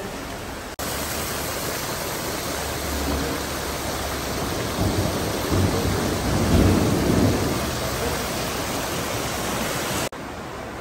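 Carrots, meat and oil frying hard in a giant plov kazan, a dense sizzling hiss with a deeper rumble in the middle. The sizzle starts abruptly about a second in and cuts off shortly before the end.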